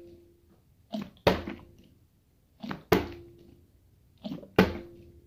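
Plastic water bottle flipped and landing on a glass tabletop three times, roughly every second and a half, each landing a thunk with a brief ring and a lighter tap just before it.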